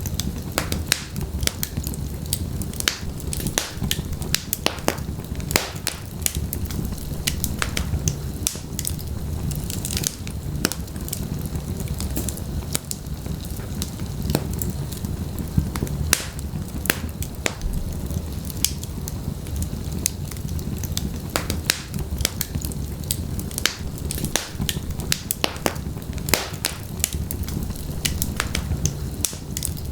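Wood fire burning in a fireplace: a steady low rumble of flames with frequent sharp crackles and pops scattered throughout.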